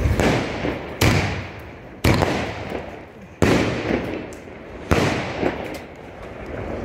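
Multi-shot aerial firework cake going off: five loud bangs about a second apart as shells burst in the sky, each fading out with a crackle.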